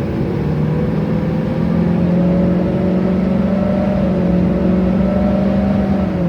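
LLY Duramax 6.6-litre turbo-diesel V8 pickup under way with a 4-inch straight-pipe exhaust, its cooling fan locked to engine speed by a welded-up fan clutch and sounding like a hurricane in the front of the truck. The engine note climbs a little about two seconds in, holds, then drops near the end.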